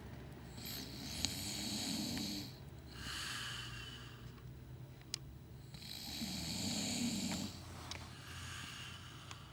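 A man snoring in his sleep: two slow snoring breaths about five seconds apart, each a low snore followed by a softer, breathy hiss.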